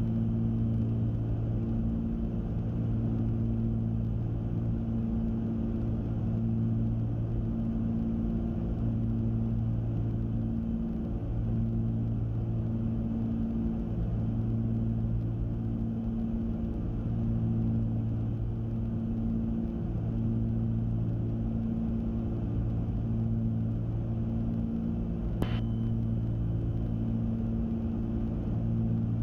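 Cabin drone of a Cessna 310Q's twin Continental six-cylinder engines and propellers in flight on approach, steady with a slow regular throb. About 25 seconds in there is a single click followed by a short high tone.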